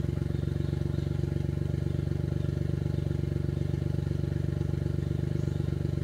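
Suzuki Jimny JA11's small three-cylinder engine running at a steady speed while the vehicle is winched slowly through mud: an even, unchanging drone with a fast regular pulse.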